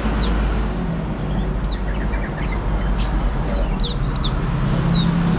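Many caged small songbirds chirping: scattered short, high, quick-sweeping chirps from several birds, thickest near the end, over a steady low rumble of road traffic.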